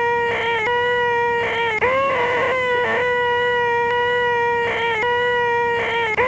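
A man's high, nasal, held vocal whine, the 'most annoying sound in the world', sustained on one steady pitch. It has brief breaks and little pitch catches every second or so where it restarts.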